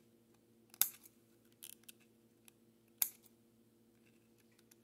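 Scissors snipping through the overhanging ends of model roof shingles: two sharp snips, about a second in and again near three seconds, with a few fainter clicks between.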